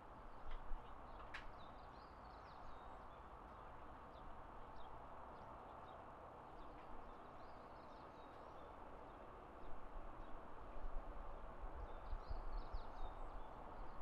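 Quiet evening outdoor ambience: a steady low hiss with small birds chirping in short, scattered calls, and a low rumble that grows over the last few seconds.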